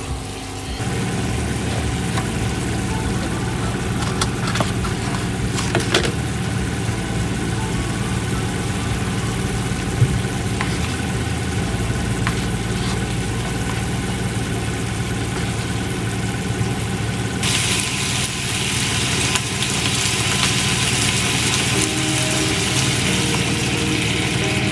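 Mushroom sauce simmering and reducing in a frying pan on an induction hob, over a steady low hum. Light clinks of utensils come a few times early on. About two-thirds of the way through, a louder hiss of bubbling sets in.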